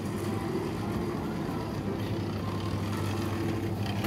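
Supermarket ambience: a steady low hum with faint clatter, and a few brief higher tones near the end.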